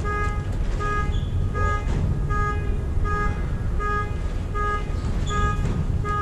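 A short pitched beep repeating steadily about every three-quarters of a second over a constant low rumble.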